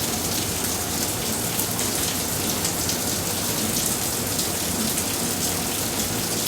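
Heavy rain pouring down steadily, a dense hiss of countless drops striking surfaces.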